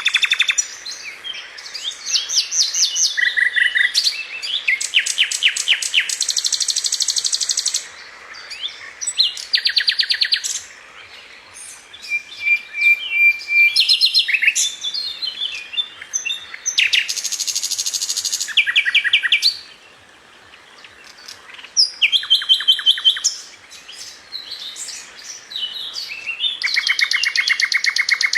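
Several songbirds singing and chirping in turn, mostly rapid trills of quickly repeated notes, with short pauses between phrases.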